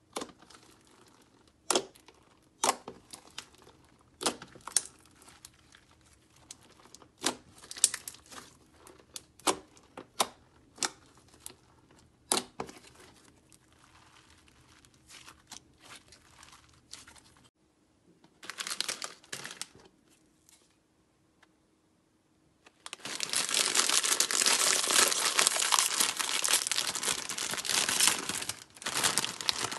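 Slime squished and stretched by hand, giving sharp pops and clicks about once a second. Then, after a short quiet gap, a foil Doritos chip bag crinkles loudly as it is handled and torn open, for the last several seconds.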